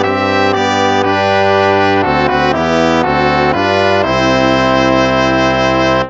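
Instrumental hymn played with a brass sound. The chords change every half second or so, then one long chord is held for about the last two seconds before the phrase stops.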